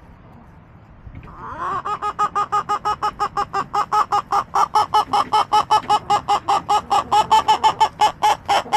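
A hen cackling: a loud, fast, even run of clucks, about six a second, starting a little over a second in and keeping on.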